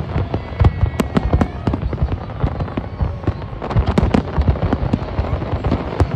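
Fireworks display: a rapid, unbroken barrage of aerial shell bursts, many sharp bangs every second over a continuous crackling rumble.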